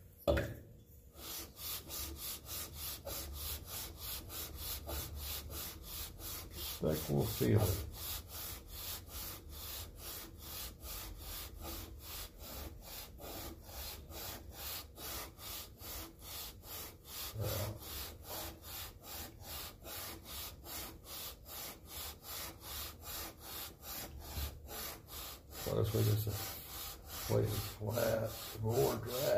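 Aluminium cylinder head of a Kawasaki FH721D V-twin being lapped by hand on wet sandpaper: steady, rhythmic back-and-forth rasping strokes of metal over grit as the badly warped gasket face is ground flat.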